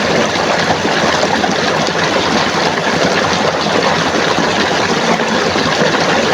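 Steady rushing of flowing stream water, an even wash of noise with no breaks.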